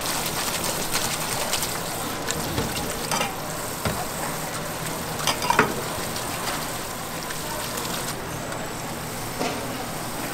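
Spray faucet running a steady stream of water onto freshly cooked thin noodles in a stainless steel colander while they are rinsed and rubbed by hand, with a few light knocks.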